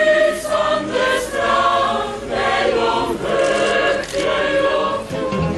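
Mixed choir of men and women singing together under a conductor, holding notes in several parts at once.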